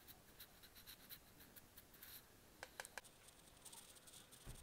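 Faint scratching of an eyeshadow brush stroking across the eyelid, with a few light clicks a little past halfway.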